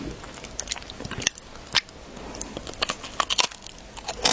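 Close-up eating sounds of a person biting and chewing a Japanese pastry: a string of small crisp clicks and crackles from the mouth.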